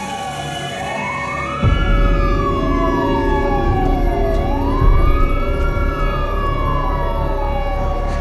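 A wailing siren repeatedly rising quickly, then falling slowly in pitch, about once every three and a half seconds. About a second and a half in, a loud low rumble sets in suddenly beneath it and carries on.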